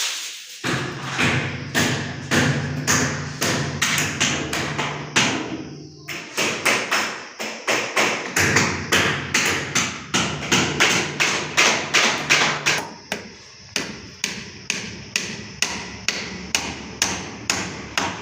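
Repeated hammer blows, struck steadily at about two to three a second.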